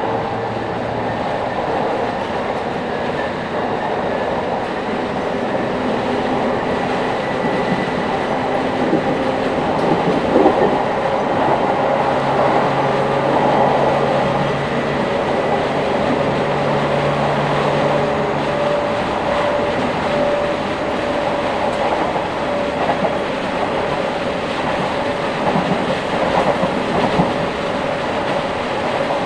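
Cabin sound of a JR East 701 series electric train running, its GTO-thyristor VVVF inverter and traction motors giving steady humming tones over wheel and rail noise. The tones shift in pitch a few times, and the lowest ones drop away about two-thirds of the way through.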